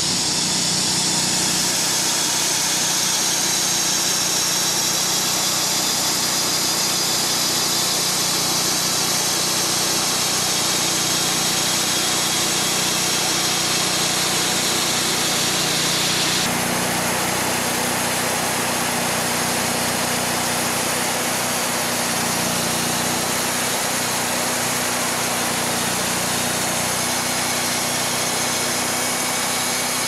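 Gas engine of a Vallee portable bandsaw sawmill running steadily under load as the band blade cuts a slab from a tulip poplar log. The sound shifts slightly about halfway through.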